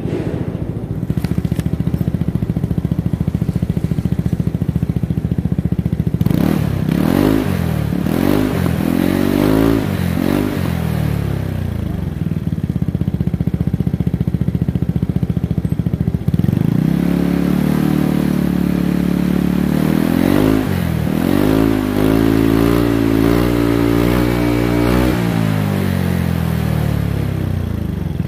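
Yamaha Cygnus X 125 scooter's single-cylinder four-stroke engine idling through its exhaust. It is blipped several times a few seconds in, then held at higher revs for about nine seconds before dropping back to idle.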